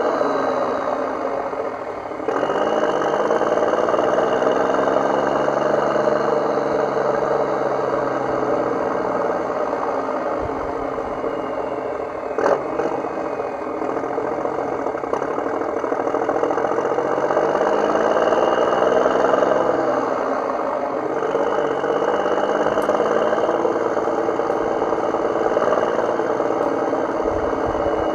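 Vehicle engine running steadily, its pitch rising and falling a few times as if revving.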